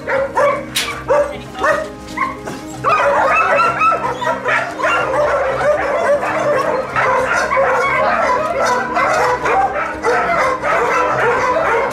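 Several hunting pointing dogs barking and yelping together in a kennel, a few yelps at first and then a dense, unbroken chorus from about three seconds in, over background music.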